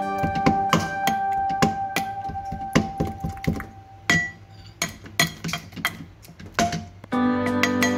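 Stainless-steel pestle pounding a wet paste in a stainless-steel mortar: irregular metallic clinks and knocks, about two or three a second. Background music plays under it, drops out for a few seconds in the middle and comes back near the end.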